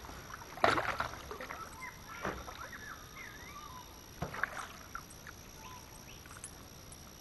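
A hooked fish splashing and thrashing at the side of a small boat as it is landed by hand, with a few sharp splashes about a second, two seconds and four seconds in. Faint bird chirps are in the background.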